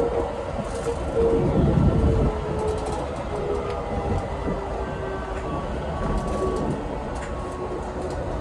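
Keikyu 1000-series electric train under way, heard from the driver's cab: the whine of its Siemens IGBT inverter and traction motors slowly falling in pitch over the running rumble and scattered clicks of the wheels on the rails.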